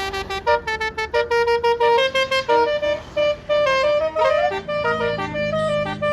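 Basuri telolet multi-tone bus horn playing a fast melody of many short stepped notes, with a few brief sliding notes. A low steady hum joins under it near the end.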